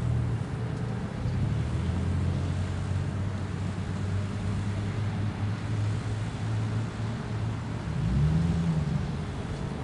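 Motor-vehicle engine running with a low, steady hum. About eight seconds in, an engine note rises and falls, as of a vehicle speeding up or passing.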